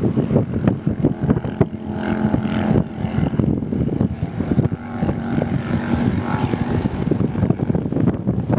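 Toyota Hilux pickup's engine running as it drives over loose sand, heard from a distance under heavy wind buffeting on the microphone. The engine note comes up more clearly twice, about two seconds in and again about five seconds in.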